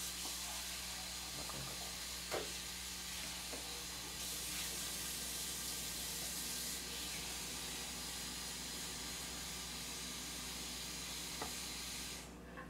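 Steady hiss with a low hum underneath, and a couple of faint taps from a knife spreading frosting on a cake layer. The hiss cuts off suddenly near the end.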